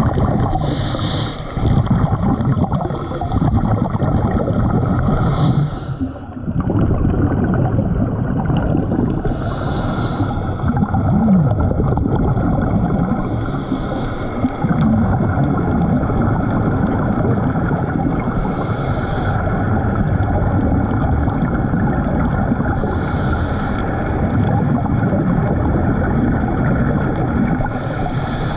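Scuba diver breathing through a regulator underwater: a steady rumbling water noise, with a short hiss of exhaled bubbles about every four to five seconds.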